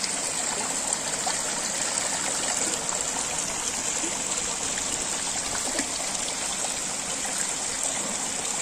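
Water falling in thin streams into an open fish tank, splashing steadily on the surface.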